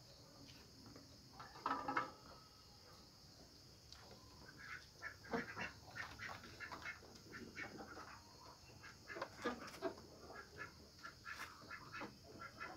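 Goat kids bleating in short calls, the loudest about two seconds in, then a run of brief calls, over a steady high trill of crickets.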